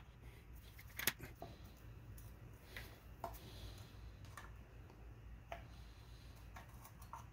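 Sparse, faint metallic clicks and ticks as modified channel-lock snap ring pliers work a large snap ring (C-clip) into its groove in a turbocharger compressor housing. The sharpest click comes about a second in, over a steady low hum.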